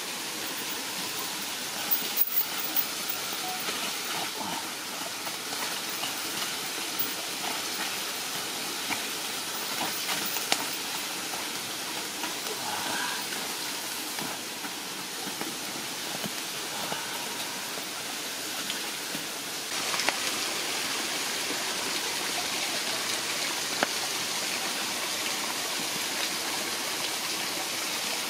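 Steady rush of running water from a jungle stream, with scattered sharp clicks and crackles over it. The rush gets a little louder and brighter about two-thirds of the way through.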